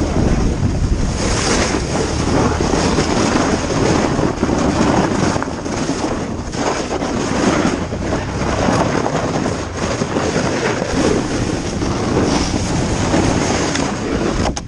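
Wind rushing over the microphone and a toboggan hissing and scraping over snow as it is towed at speed behind an ATV: a loud, continuous, uneven rushing noise.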